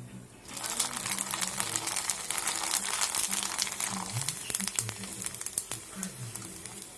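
Sago papad frying in hot oil: a dense crackling sizzle that starts suddenly about half a second in and slowly eases off.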